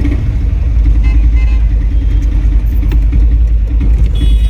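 Steady low rumble of a car's engine and road noise heard from inside the moving car's cabin.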